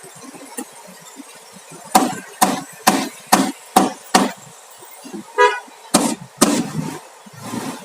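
Hammer blows driving nails into wooden formwork boards: a run of six strikes about two a second, then two more after a short pause.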